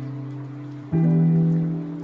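Background music: held chord tones, with a new chord struck about a second in that rings on.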